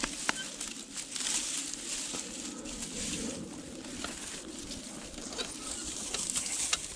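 Dry grass rustling and crackling as hands work through it, with scattered clicks and knocks from setting a pigeon release box; a sharp click comes about a third of a second in.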